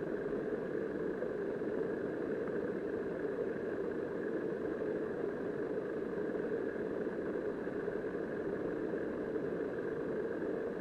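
River current heard through a submerged camera's housing: a steady, muffled rushing drone that does not change.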